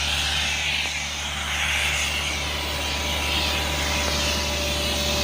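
Air compressor running steadily: a constant low engine drone under a broad rushing hiss of air being blown into the well.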